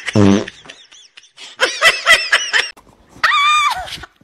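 Quick bursts of human laughter, with a short low voice sound at the start and a loud high-pitched drawn-out cry near the end.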